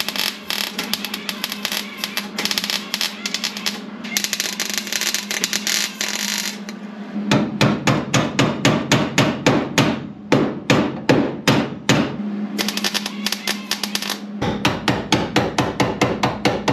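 MIG welder crackling in long bursts as patch panels are tacked and spot-welded over rust repairs in a car's sheet-metal wheelhouse. In the middle there is a run of sharp metallic knocks, about four a second, before the welding crackle resumes.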